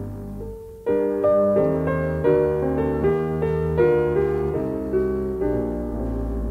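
Jazz piano playing chords in an instrumental passage, struck about twice a second after a brief pause about a second in.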